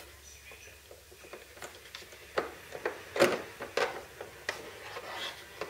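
A run of small, sharp clicks and knocks from hands working the metal and plastic parts of an RC jet's landing-gear linkage, starting about two seconds in.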